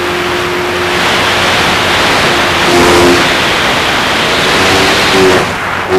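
RC P-51 model plane's motor and propeller running in flight, heard from its onboard FPV camera, under heavy wind rush on the microphone. The motor's hum changes pitch about three seconds in and again near the end.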